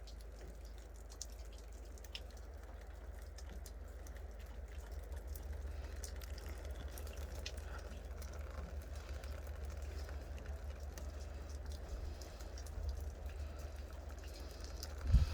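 Meltwater from thawing snow dripping off a roof: scattered, irregular drips over a steady low rumble.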